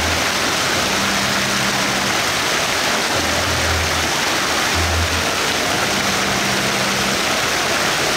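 Fountain jets splashing steadily into their pool: a constant rush of falling water, with low bass notes of music coming and going underneath.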